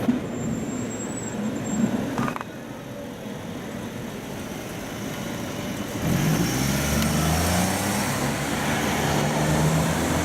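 Road traffic moving past, with a vehicle engine pulling away and running louder from about six seconds in.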